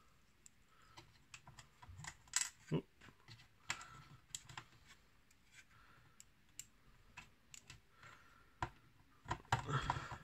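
Small screwdriver driving tiny screws into a plastic model-kit panel: scattered light clicks and ticks of the metal tip on screw heads and plastic, with a denser patch of louder clicks and handling of the plastic parts near the end.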